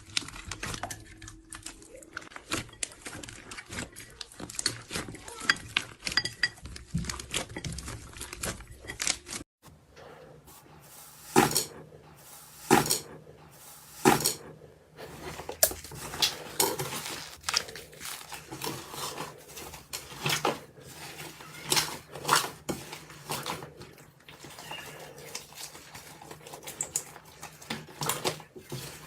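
Slime being squeezed and pressed by hand, making a run of sticky clicks and pops. About nine seconds in the clip changes, and the pops become louder and sharper, a few each second.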